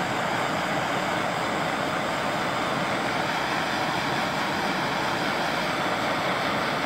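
Handheld gas torch burning steadily while its flame heats a gel-filled heat-shrink wire connector.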